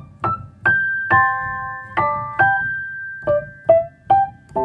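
Gentle piano intro music: single struck notes and small chords, one after another, each ringing out and fading.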